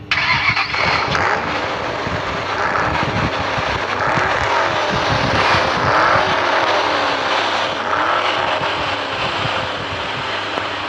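Edited-in car sound effect: an engine revving up and down in pitch over a loud rushing noise, starting and cutting off abruptly.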